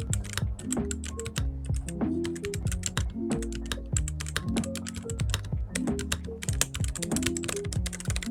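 Fast typing on a Redragon UCAL K673 Pro mechanical keyboard: a quick, dense run of key clacks, over background music.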